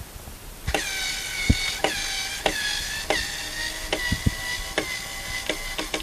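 A screw being driven into wood by hand, squeaking steadily at a high pitch, with a click each time the tool is reset between turns, about every half-second to second.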